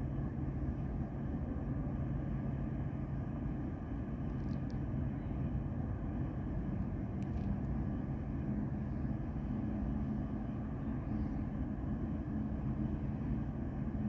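Steady low drone of a lake freighter's diesel machinery across the harbour, its hum moving to a higher tone about halfway through.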